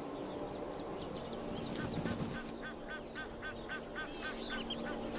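Bush ambience: a bird calling a rapid, even series of short notes, about five a second, through the middle stretch, with other faint bird chirps over a steady low hum.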